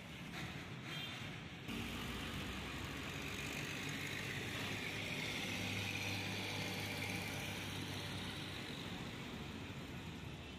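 A motor vehicle engine idling steadily, a little louder from about two seconds in.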